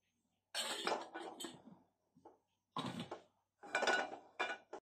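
Non-stick frying pan being handled and set down on the metal grate of a gas hob, clattering in three bursts.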